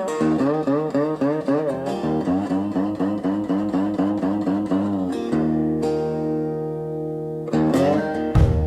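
Blues guitar instrumental intro: a run of quickly repeated notes, each bent up and back in pitch. About five seconds in it settles into a held chord, and low bass notes and hits come in near the end.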